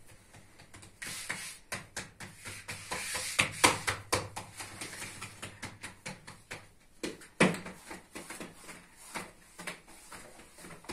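Irregular knocks, clicks and rustling from someone moving and handling things beside a tandoor oven, with two louder thumps, one a little under four seconds in and one about seven and a half seconds in.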